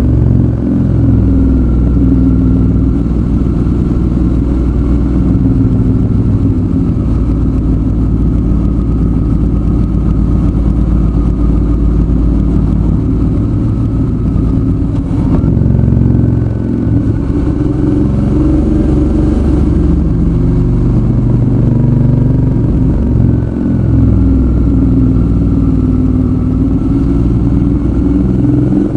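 Suzuki V-Strom 650's V-twin engine running while riding, its pitch rising and falling several times with throttle and gear changes.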